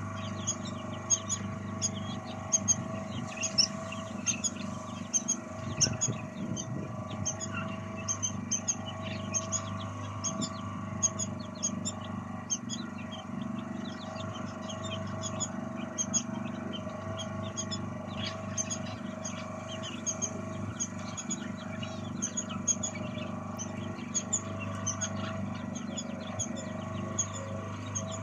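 Many small birds chirping continuously in short, high-pitched notes over a steady low mechanical hum.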